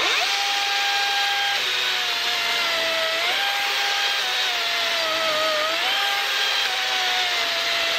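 DeWalt 60-volt brushless battery chainsaw running and cutting through a log: a steady electric whine whose pitch sags several times as the chain bites into the wood and climbs back in between, over the hiss of the chain tearing through the wood.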